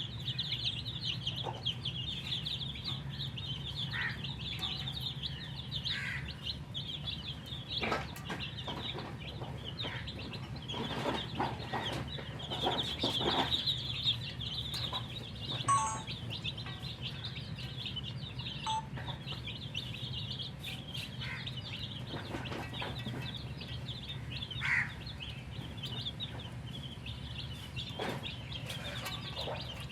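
A brood of baby chicks peeping continuously in a dense, high-pitched chorus, over a steady low hum, with a few taps and knocks in the middle.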